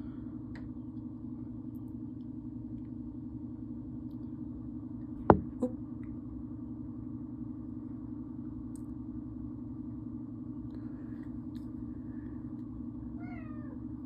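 House cat meowing briefly: one short, sharp call about five seconds in, a smaller one just after, and another brief mew near the end, over a steady low hum.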